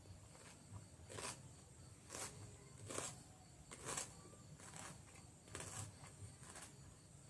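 Raw cucumber being chewed close to the microphone: crisp, wet crunches about once a second.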